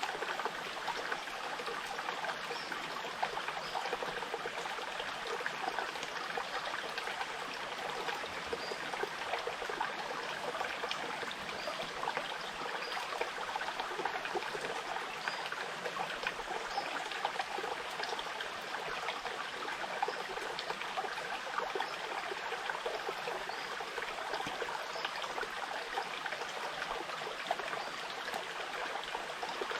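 Small forest stream trickling and babbling steadily.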